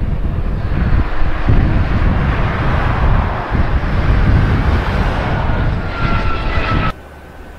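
Twin-engine business jet on its landing roll, its engines giving a loud, steady jet roar over a heavy low rumble, with a thin whine that dips slightly in pitch late on. The roar cuts off abruptly near the end, leaving a quieter steady hum.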